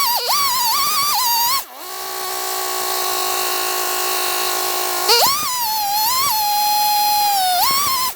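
Chainsaw on a chainsaw mill running flat out with a high whine, its pitch dipping and recovering as it cuts. For a few seconds in the middle the pitch drops lower and holds steady.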